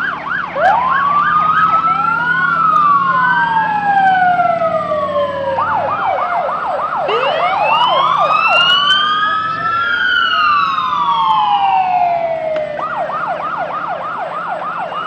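Fire engine siren switching back and forth between a fast yelp and a slow rising-and-falling wail: yelp at the start, about a second and a half in, around six seconds, and near the end, with long wails between. A steady low engine drone runs underneath.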